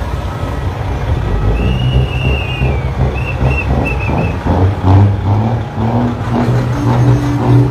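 A semi-truck's diesel engine running loud as the truck rolls slowly past, rising in level near the middle and again near the end. A few short whistled notes sound over it in the first half.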